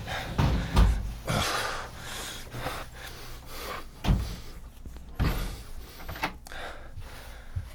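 A house door being opened and shut as people come in from outside: several thumps and knocks, the loudest about a second in, with rustling between them.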